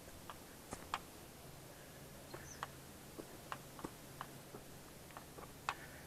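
Footsteps on a dry bush track: light, irregular clicks and crackles underfoot, about one or two a second.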